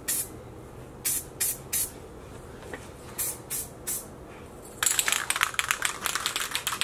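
Aerosol can of self-etching primer spraying in short hissing bursts, several in quick succession. About five seconds in, a busier, louder crackling rattle takes over.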